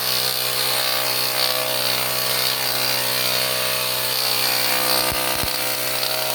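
Small electric air compressor running steadily with a constant motor hum, blowing a hissing stream of air through an inflation needle to dry a cleaned door.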